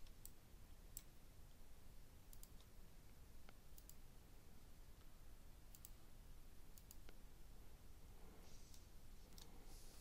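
Faint computer mouse clicks, single and in quick pairs, scattered over a low steady room hum while distance-measurement points are picked on screen.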